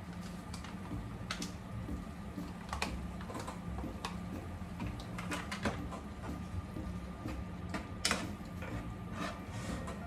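A kitchen utensil scraping and tapping in a pan of thick sauce as tomato paste is stirred in, a dozen or so irregular clicks and scrapes with a sharper knock about eight seconds in, over a steady low hum.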